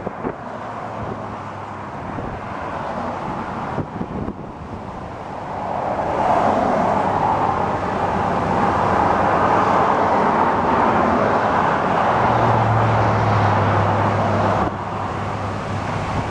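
Road traffic on the highway with wind on the microphone: a steady rush of tyre and engine noise that swells about six seconds in, adds a low hum of a passing vehicle later, and eases near the end.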